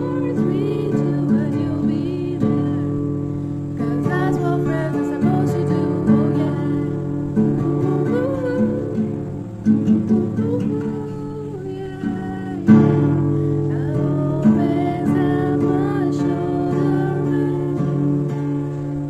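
Guitar strummed and plucked with a woman singing along, the music stopping abruptly at the end.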